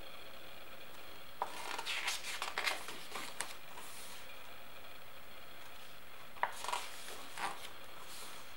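Paper pages of a hardcover photo book being turned by hand: two short bouts of crisp rustling and page flicks, about a second and a half in and again about six and a half seconds in, over a faint steady hiss.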